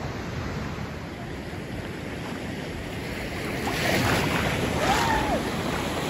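Ocean surf and wind on the microphone, a steady wash of noise that grows louder and splashier about two-thirds in as breaking waves and shallow water come close. A short high call rises and falls near the end.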